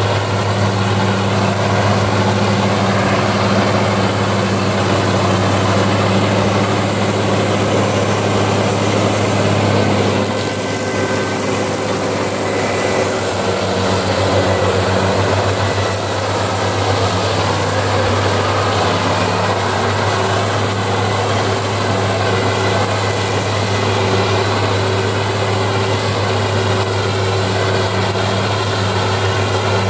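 A large 4x4 tractor's engine running steadily under load, driving a rear-mounted, belt-driven grass mower through tall grass: a steady low drone with mower and cutting noise above it. The drone dips slightly about ten seconds in.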